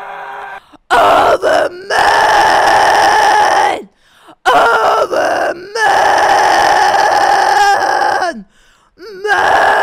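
A woman's extreme-vocal scream on a held high note, a hybrid of false-cord and fry scream with a bright tone, narrowed throat and a little air. It comes as several loud phrases of one to two seconds each, broken by short breaths.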